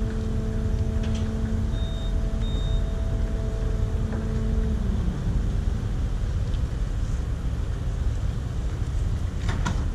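Low, steady rumble of a docked car ferry's engines, with a humming tone on top that cuts off about halfway through. Two short high beeps sound about two seconds in.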